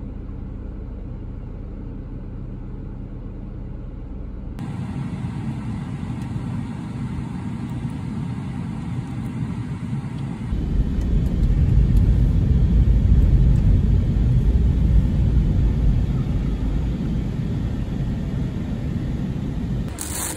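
Steady low rumble of a moving car heard from inside the cabin. It jumps abruptly to a different level twice, and the last stretch is the loudest.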